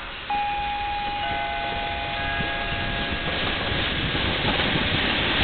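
EP07 electric locomotive horn sounding two steady tones, the second joining about a second in and both stopping about three seconds in, over the rising rumble of the arriving train.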